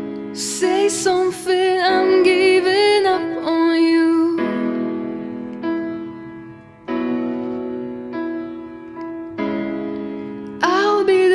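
A young woman singing a slow, lyrical song with vibrato over sustained piano chords. Her voice drops out after about four seconds, leaving the piano alone, and comes back near the end.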